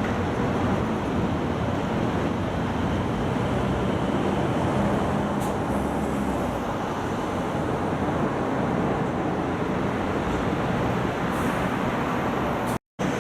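Steady road traffic noise from vehicles passing through the intersection. Near the end it cuts out for a moment.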